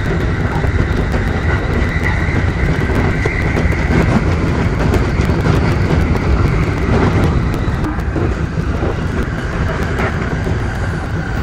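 Electric commuter train running, heard from the driver's cab: a steady low rumble with many rapid wheel clacks over it and a thin steady whine.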